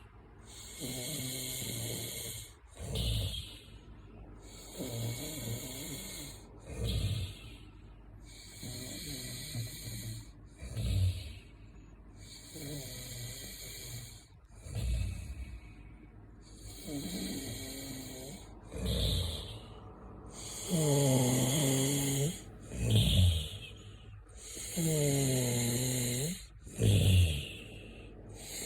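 Snoring, one breath cycle about every four seconds: a longer breath lasting a second or two, then a short, louder burst. In the last third the snores grow louder and take on a clearer pitch that bends as each breath goes.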